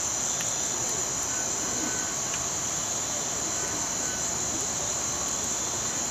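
Steady nighttime chorus of crickets: a continuous high-pitched trill that holds even throughout.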